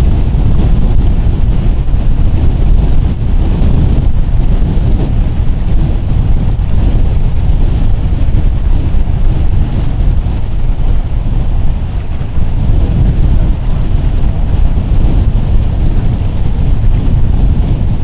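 Strong wind buffeting the microphone: a loud, continuous low rumble that never lets up, from open-water winds of about 35 mph gusting over 40.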